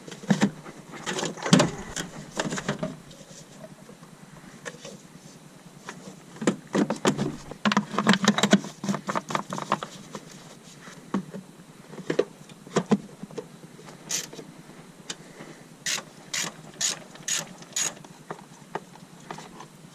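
Metal hand tools and parts clicking and clinking in irregular bursts during work on a power steering pump, with a run of single sharp clicks near the end.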